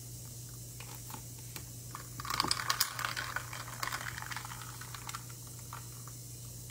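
Ice cubes clinking and rattling against a glass cup as a drink is stirred with a straw, busiest for a couple of seconds in the middle, with a few scattered light clicks before and after.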